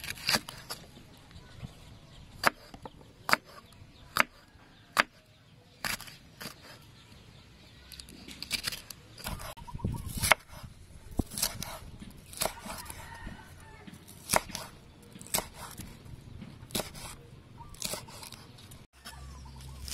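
Large kitchen knife chopping green chilies and slicing a bell pepper on a wooden chopping board: separate sharp knocks of the blade hitting the board, about one a second.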